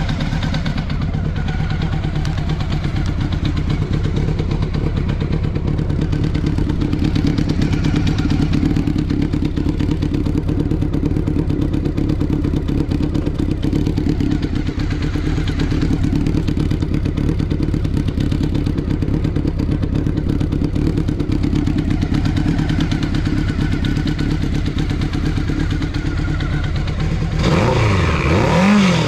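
Honda CBX750F's inline-four engine idling steadily through a short Yoshimura Cyclone four-into-one full exhaust, with no abnormal noises, then revved up once near the end.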